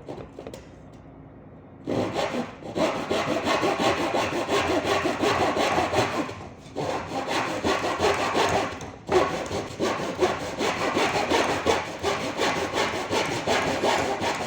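Hand saw cutting through a wooden board, in rapid back-and-forth strokes that start about two seconds in and pause briefly twice.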